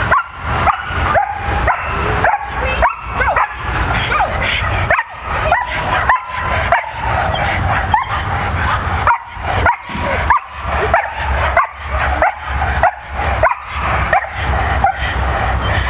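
A dog barking and yipping over and over, about two calls a second, each with a short rising or falling pitch.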